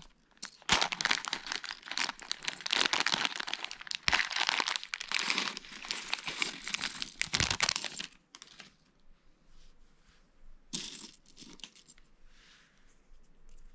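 Plastic Lego parts bag crinkling and rustling for about eight seconds as it is handled, then a few quieter clicks of small plastic pieces.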